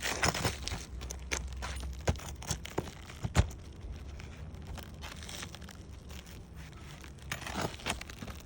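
Hand tool scraping and knocking against asphalt roof shingles while the old shingle and its nails are worked loose: scattered sharp taps, the loudest about three and a half seconds in, with scraping near the start and near the end.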